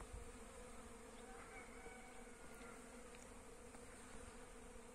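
Faint, steady hum of many honeybees foraging on flowering hazel catkins and collecting pollen.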